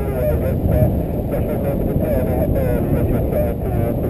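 Wind rushing over a paraglider pilot's camera microphone in flight, a loud continuous rumble. A wavering, warbling tone comes and goes above it.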